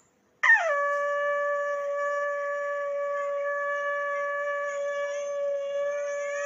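Conch shell (shankh) blown in one long held note. It starts about half a second in with a quick downward slide in pitch into the note, then holds steady.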